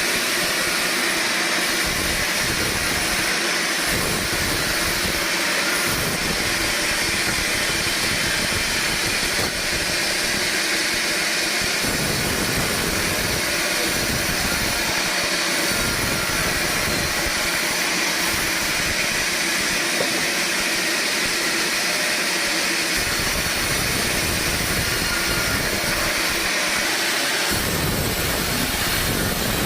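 Sawmill running and sawing logs: a loud, steady machine noise with a deeper rumble that comes and goes every few seconds.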